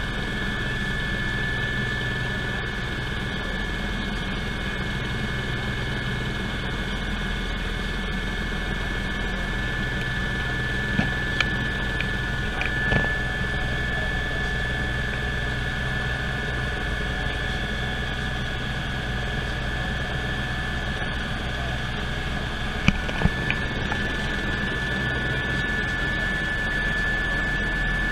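Cabin noise of a Eurocopter EC120 Colibri helicopter in cruise flight: its Turbomeca Arrius turboshaft and rotors make a steady drone with an even high whine. A few brief clicks come about halfway through and again near the end.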